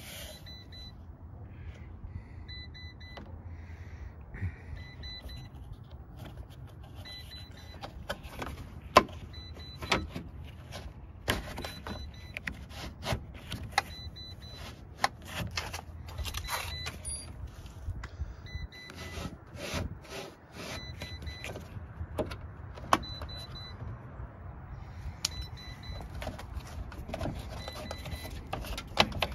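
Fiat 500 door glass and its plastic guide clip being worked into the door's rubber window track: repeated sharp clicks and knocks, irregularly spaced, over a steady low hum.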